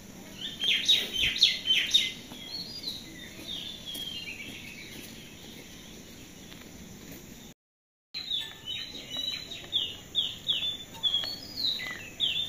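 Small birds chirping in quick runs of short, falling notes, with the audio cutting out for about half a second around the middle.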